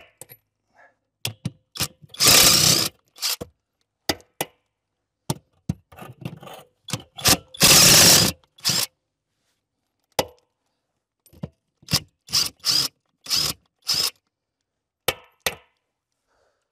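Tool work on a vehicle's front axle: a string of short knocks and scrapes with silent gaps between them, and two louder, longer noisy bursts about two and eight seconds in.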